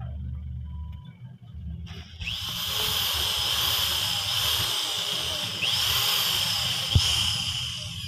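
Electric drill working at the aluminium interlocker of a sliding-window panel to fix a crescent lock's hook. It starts about two seconds in and runs steadily at a high whine, its pitch rising a few times, with a sharp knock near the end.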